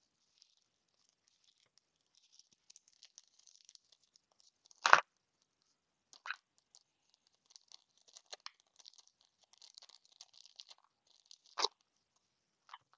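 Small clear plastic bag of thermal pads crinkling and rustling as it is handled and the pads are taken out, with a few louder sharp crackles; the loudest is about five seconds in, another near the end.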